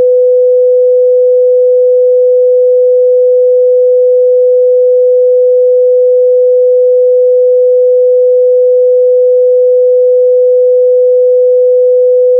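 One loud, unbroken electronic test tone held at a single steady mid pitch, the kind of beep that runs under a TV station's technical-difficulties screen.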